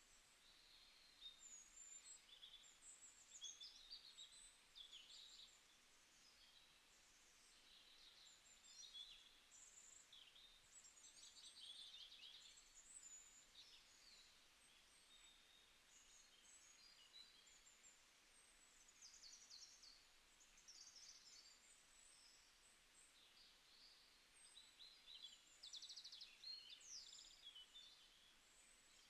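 Faint birdsong: several small birds chirping and trilling over a soft steady hiss.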